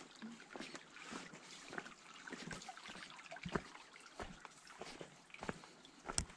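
Footsteps of a hiker on the trail, irregular strikes about once a second, over a faint trickle of running water.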